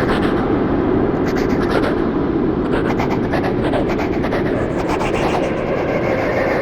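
Creepy horror sound effect: a steady, dense rumbling drone peppered with rapid crackles and ticks, described as an echo sound.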